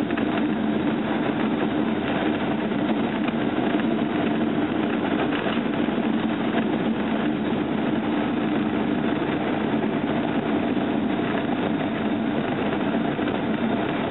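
Cessna 172 Skyhawk's piston engine and propeller running steadily, an even drone heard from inside the cockpit.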